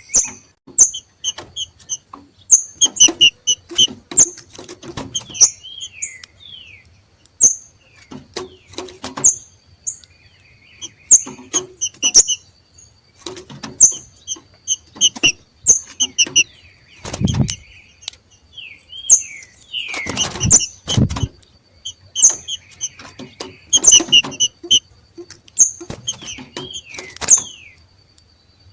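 Green-winged saltators (trinca-ferro) 'macheando': bursts of short, sharp repeated calls mixed with quick downward-sliding notes, the excited call-type these birds give when coming into breeding condition. Many sharp clicks and a couple of low thumps come between the calls, and a faint steady high tone runs underneath.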